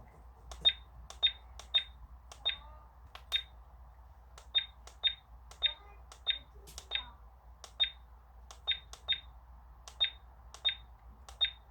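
An instant-print digital camera beeping with each button press, about twenty short high beeps at an uneven pace of one to two a second, as its menu or photos are stepped through.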